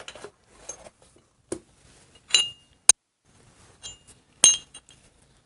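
Metal parts of a cam bearing installation tool clinking as they are picked up and handled: a handful of sharp, separate clinks, two of them ringing briefly.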